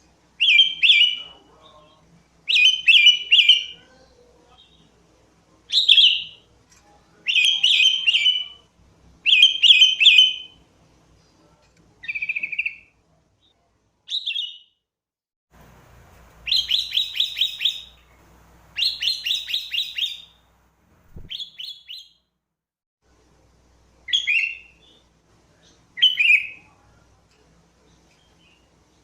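Sooty-headed bulbul (kutilang) singing: short bubbly phrases of a few notes every second or two, with two longer runs of quickly repeated notes near the middle.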